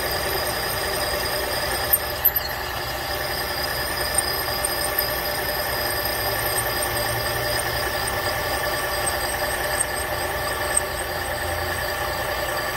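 Machine spindle running a core drill down into a cast-iron cylinder head's valve guide bore, giving a steady mechanical whine made of several held high tones over a low hum, with a few sharp clicks about two seconds in.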